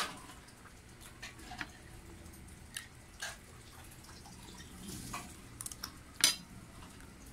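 Spoon and fork clinking and scraping against a plate during a meal: scattered short clicks, with the loudest clink a little over six seconds in.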